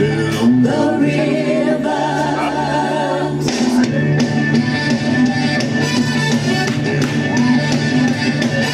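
Music with a singer's voice over held low notes. The music changes about three and a half seconds in.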